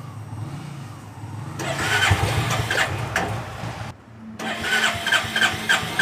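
Royal Enfield Classic 350 single-cylinder engine cranked on its electric starter in two tries of about two seconds each, firing in uneven pulses without staying running. It is typical of the bike dying right after starting, which the mechanic puts down to a bad spark plug.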